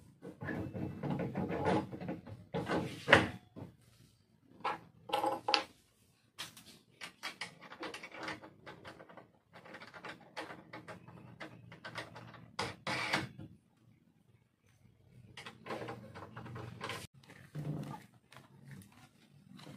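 Irregular knocks, clicks and clattering from the plastic end holders and steel rods of a sticker-cutting machine as a roll of sticker material is handled, slid along and fitted into place.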